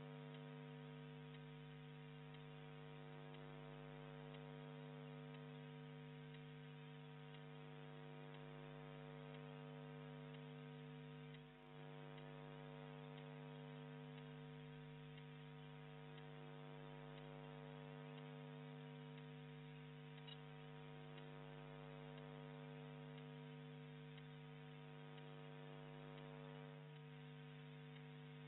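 Faint, steady electrical mains hum with a stack of even overtones, and no sound of the match; it dips briefly about twelve seconds in.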